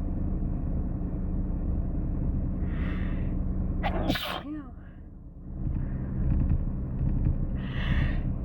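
A person sneezing: a drawn-in breath about three seconds in, one sharp sneeze a second later with a short voiced tail, and another drawn-in breath building near the end, over a steady low hum.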